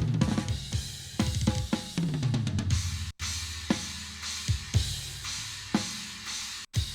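Recorded live drum kit playing fast: kick, snare, cymbals and tom strokes. It is heard through a Vari Tube tube compressor set to the fastest release and a slow attack. The sound cuts out for a moment about three seconds in and again near the end.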